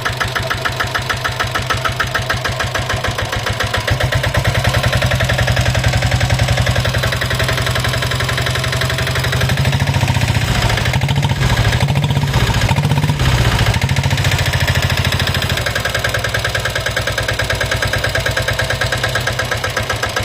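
Royal Enfield Diesel Bullet's single-cylinder diesel engine running with a rhythmic 'tak tak tak' knock: piston slap, which the owner puts down to a worn piston or worn cylinder wall. About four seconds in the engine speeds up and gets louder, its speed rises and falls a few times, and it settles back to idle near the end.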